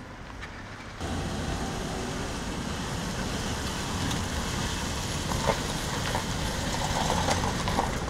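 A car's engine running as the car drives up, a steady noise that starts about a second in, with a few light knocks later on.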